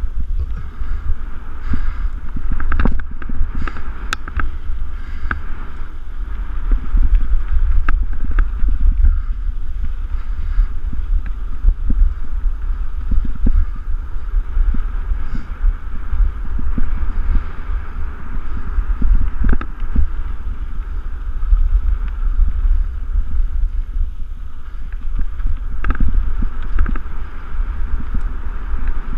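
Mountain bike riding fast down a dirt singletrack, heard through a GoPro: heavy wind rumble on the microphone, with steady tyre noise and frequent knocks and rattles from the bike over rough ground.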